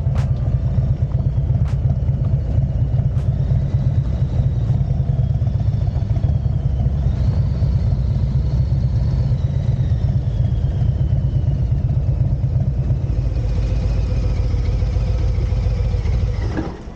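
Motorcycle engine running steadily with a deep low note. The sound drops away right at the end.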